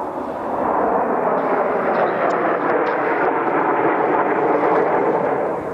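Kawasaki T-4 jet trainers flying past, a loud steady rush of turbofan engine noise that falls away sharply near the end.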